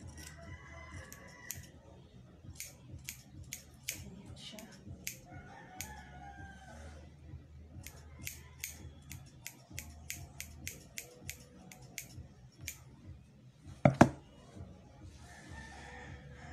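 Scissors snipping through hair in runs of crisp cuts, two or three snips a second at times. A rooster crows in the background a few times, and there is one loud knock about 14 seconds in.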